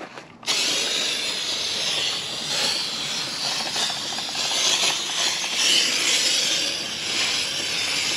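IK pump-up pressure foam sprayer spraying Surfex HD degreaser: a steady hiss of foam jetting from the nozzle that starts suddenly about half a second in.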